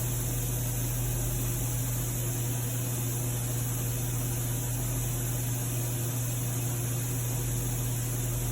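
Steady background hiss with a constant low electrical hum and no distinct events: room tone and recording noise.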